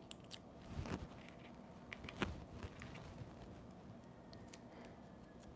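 Faint handling noises: a few soft taps and light rustles as small paper-craft pieces are handled on a tabletop.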